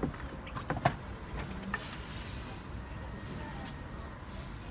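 Crepe batter hissing on a hot round crepe griddle as it is spread thin with a wooden spreader, the hiss strongest briefly about two seconds in. Two sharp utensil clinks come in the first second, the louder one just under a second in.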